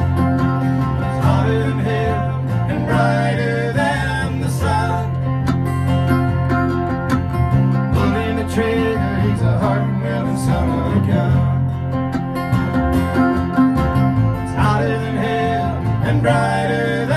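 Country band playing an instrumental break without singing: acoustic guitars strumming, a mandolin picking a melody and an electric bass underneath.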